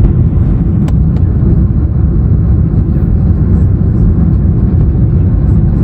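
Steady roar of a jet airliner's engines and airflow heard inside the passenger cabin, deep and even, with a single short click about a second in.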